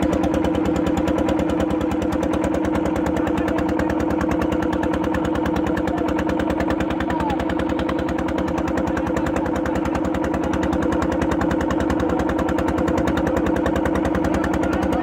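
Boat engine running steadily with a fast, even throb that holds the same pitch throughout.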